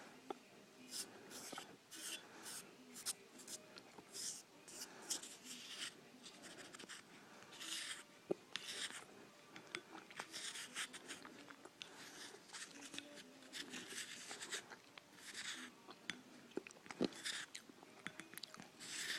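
Microwaved cornstarch crunching and scraping in short, irregular, faint scratchy bursts, a few each second.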